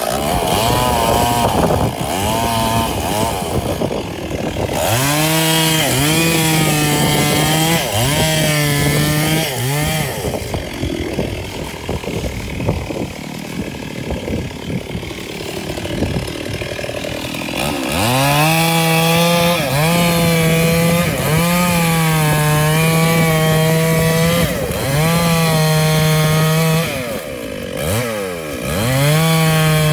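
Two-stroke Stihl chainsaw cutting into a mahogany trunk, revving up and down in repeated bursts. It drops to a lower, quieter idle for several seconds in the middle, then revs and cuts again.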